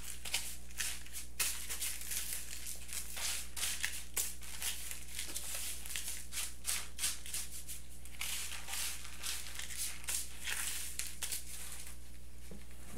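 Silicone spatula scraping and tossing dry breadcrumbs and grated Parmesan on a paper plate: irregular light scratchy rustling and clicks, over a steady low hum.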